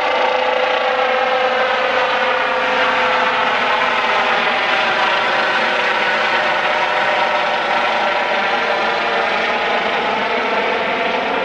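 Eurocopter EC135 helicopter's twin turbines and rotors running loudly as it flies low overhead and climbs away, a steady whine whose pitch lines sweep slowly as the aircraft passes.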